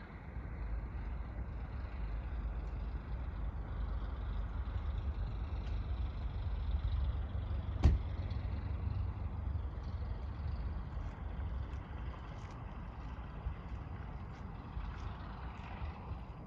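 Wind buffeting the microphone over the faint, steady running of a distant single-engine light aircraft's engine. There is one sharp click about halfway through.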